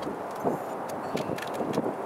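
A CAT7 tourniquet being tightened on an arm: irregular rustles and light knocks as the strap is pulled and the windlass is handled.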